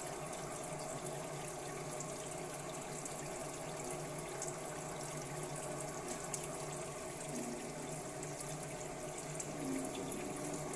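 Kitchen tap with a spray head running steadily into a sink.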